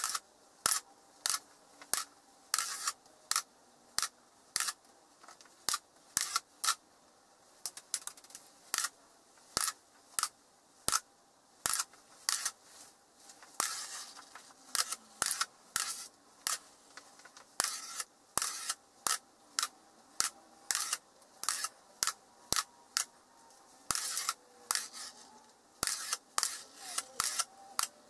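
Small magnetic steel balls clicking sharply as they snap together and onto the clusters, at an irregular pace of about two clicks a second, sometimes in quick pairs.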